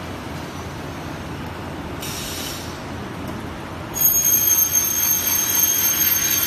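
Steady machine hum, then about four seconds in the circular saw blade of an aluminium cutting machine starts cutting aluminium profile with a sudden, loud, steady high-pitched screech.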